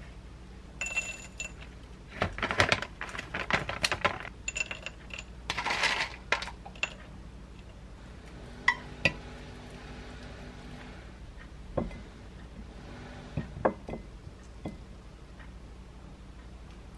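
Kitchen clatter of utensils on glass and ceramic: a metal spoon clinking and stirring in a small glass bowl, with a ringing tone on the sharper hits, for the first several seconds. Then a couple of sharp knocks as chopsticks and a frying pan meet a ceramic plate, and a few light taps near the end.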